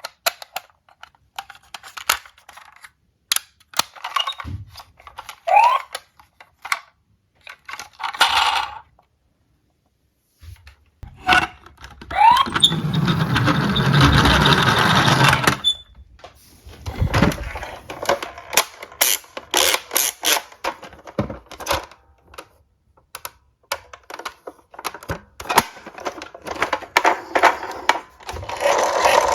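Diecast toy cars being handled: many short, sharp clicks and clacks, with a few seconds of steady rattling noise about halfway through.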